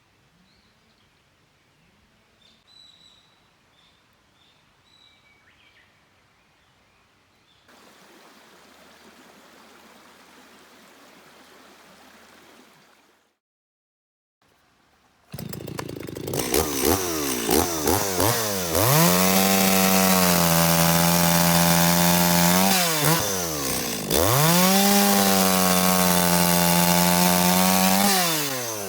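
A few faint bird chirps, then a chainsaw starts about halfway through. It is revved to full throttle twice and held there for several seconds each time, dropping back briefly in between.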